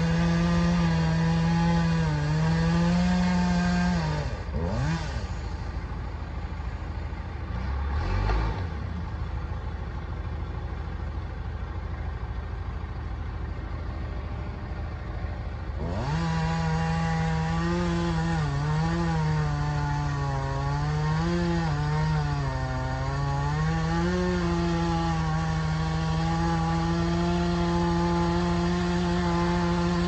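Two-stroke chainsaw at full throttle cutting into a large tree trunk. After about four seconds it drops back to idle, with a couple of quick revs and a low thump. About sixteen seconds in it revs back up and cuts again, its pitch sagging and recovering as the chain loads up in the wood.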